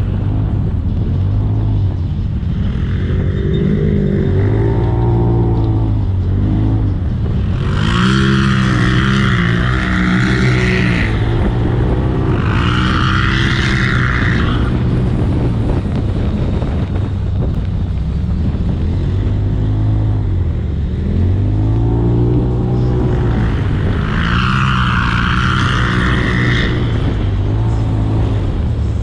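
Turbocharged Polaris RZR side-by-side engine revving up and down over and over as it is driven hard. Three times a louder high hiss rises over the engine for a few seconds.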